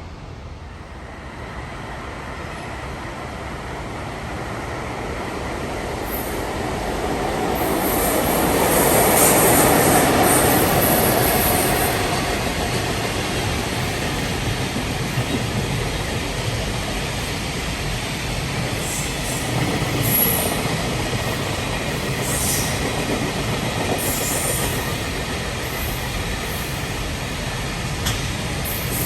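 Freight train passing: the sound swells to its loudest about a third of the way in, then runs on steadily as the wagons go by. The wheels clatter over rail joints, with brief high-pitched wheel squeals several times.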